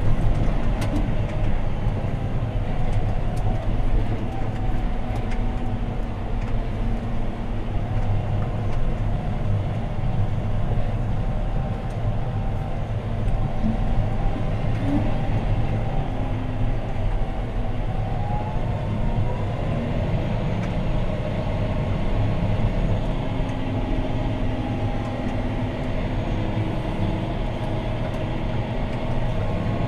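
John Deere 6215R tractor's six-cylinder diesel engine running steadily under ploughing load, heard from inside the cab as a low drone. A faint whine rides over it and rises in pitch about 18 seconds in.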